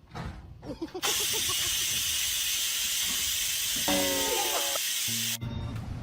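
A loud, steady hiss lasting about four seconds, with a brief squeaky sound inside it near the end. It cuts off suddenly and music starts.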